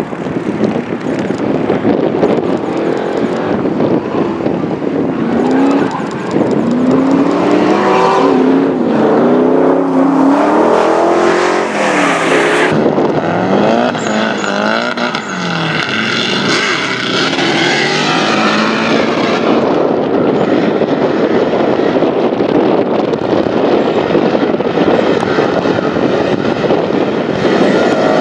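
Two drift cars, Nissan 240SX chassis, sliding in tandem: engines revving up and down hard over the rushing of sliding tyres, with an abrupt cut to another pass about thirteen seconds in.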